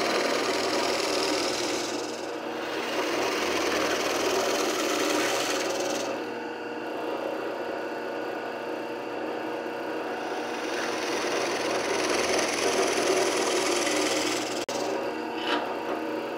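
Drill press running with a 3/8-inch plug cutter boring into walnut stock: a steady motor hum under a grinding cutting noise that swells and eases with each plunge as plugs are cut one after another.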